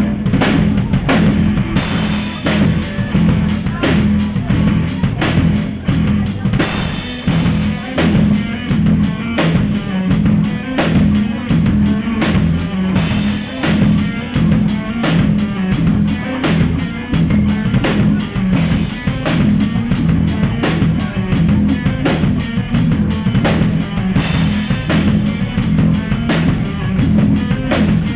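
Live heavy metal band playing: distorted electric guitar riff over a fast, steady drumbeat with bass drum, with cymbals crashing in stretches that come and go.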